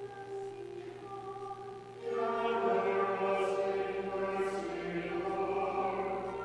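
Pipe organ holding steady chords, joined about two seconds in by singing voices as the entrance hymn begins.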